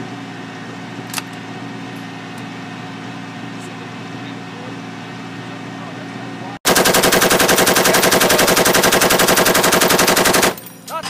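A steady low hum, then, after an abrupt cut, a long burst of rapid automatic gunfire from an LAV-25 armored vehicle's guns: evenly spaced shots for about four seconds, much louder than the hum, stopping shortly before the end.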